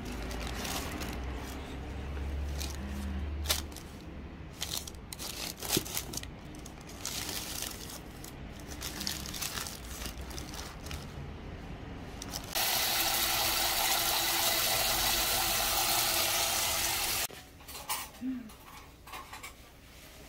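Paper liners rustling and crinkling in a box of grapes as bunches are handled. About twelve seconds in, a tap starts running in a steady stream and cuts off abruptly about five seconds later.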